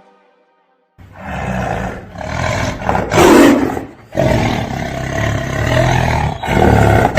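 Big-cat roaring in a run of long, rough roars, the loudest about three seconds in, starting after a second of silence.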